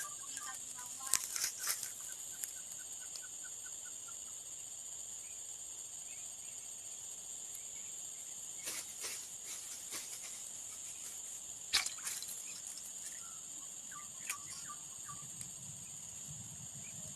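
Rural outdoor ambience: a steady high-pitched insect drone, broken by a few sharp clicks, the loudest about twelve seconds in, and a few short chirping notes.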